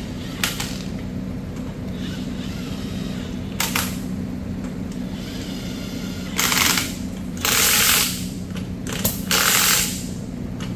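Cordless impact wrench hammering on a truck wheel's lug nuts in short bursts, four of them in the second half, after a couple of single clicks. A steady low hum runs underneath.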